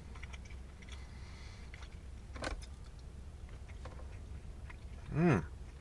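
A man chewing a mouthful of burger: faint wet mouth clicks over a low steady hum in a car cabin, with a short hummed "mm" about five seconds in.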